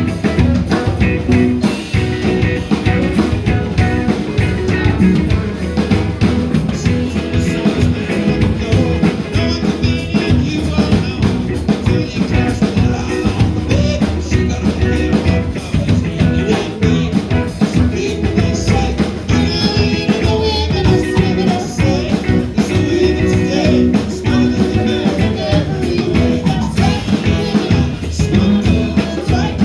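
A band playing an upbeat rock-and-roll number on drum kit and guitar, with some singing.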